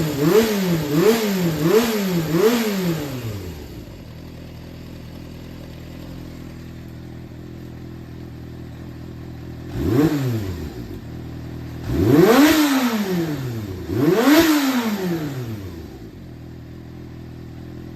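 Yamaha XJR400 (4HM) inline-four engine being revved in quick throttle blips about every half second, then settling to a steady idle. A short blip about ten seconds in and two longer revs a couple of seconds apart follow before it idles again; the seller describes it as running strongly, with no abnormal noises.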